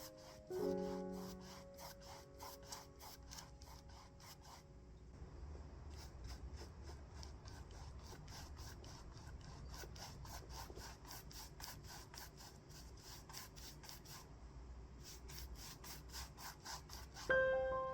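Paintbrush strokes rubbing acrylic paint onto a canvas, a run of short, evenly repeated strokes about three a second. Soft background music fades out at the start, and a bright chime-like melody comes in near the end.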